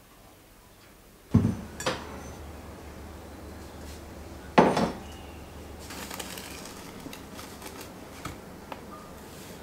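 Glassware knocking on a wooden countertop: two sharp knocks close together about a second in and a heavier one near the middle as a glass bowl and glass jar are set down. Then a soft hiss of dry granules poured into the glass bowl, with a few faint ticks.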